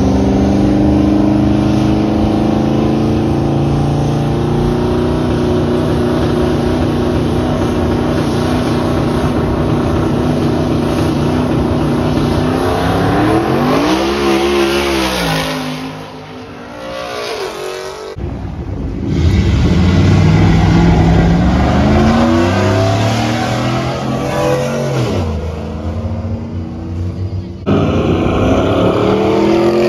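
Truck engines running at high revs, held steady at first, then revved up and back down in several sweeps; the sound breaks off suddenly a few times.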